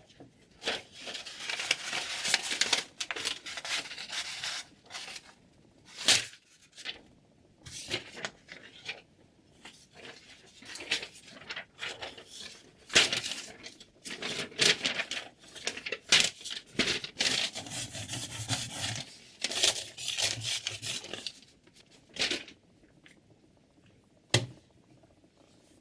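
Irregular rubbing and scraping strokes, with a sharp click about six seconds in and another near the end.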